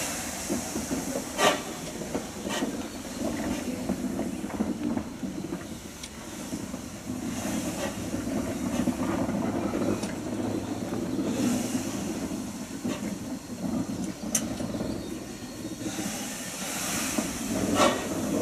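Steam locomotive, a GWR 1600 class 0-6-0 pannier tank, moving slowly under steam: a steady low rumble with steam hissing in swells every few seconds and a few sharp metallic clanks.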